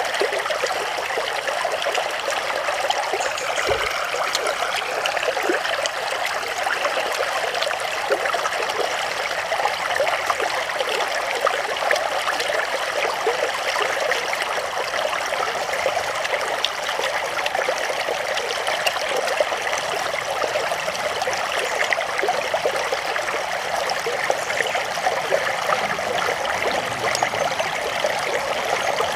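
Shallow stream running and trickling steadily.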